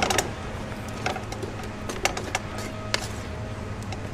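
Scattered light clicks and taps over a steady low background hum.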